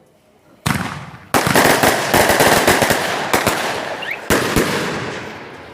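Firecrackers going off: a single bang, then a rapid crackling run of small bangs for about two seconds, a last loud crack near the end, and the sound fading away.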